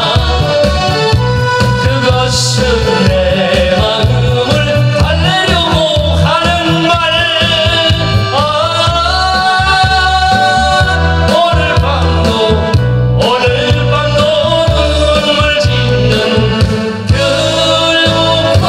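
A man singing a Korean popular song (gayo) into a handheld microphone, holding long notes over an amplified backing track with a steady bass beat.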